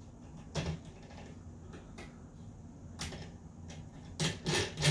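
Scattered clicks and light knocks of metal parts as the clamp on the end of a steel pinball playfield rotisserie is fitted and fastened down, with a quick run of louder knocks near the end.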